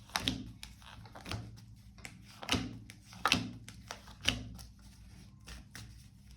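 A tarot deck being shuffled and handled: irregular sharp card snaps and slaps, roughly one or two a second, some louder than others.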